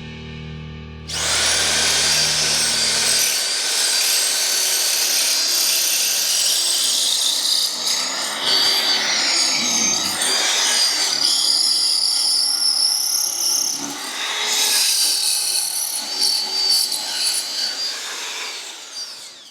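Power drill with a masonry bit grinding down into the tower floor, starting about a second in, with a wavering high whine and brief letups as it is leaned on. The bit is meeting resistance, which the driller suspects is a hidden wooden beam.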